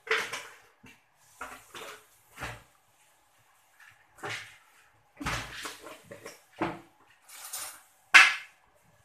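Wooden spatula scraping and knocking against a metal wok while stirring a thick wet spice paste, in irregular strokes with the loudest near the end.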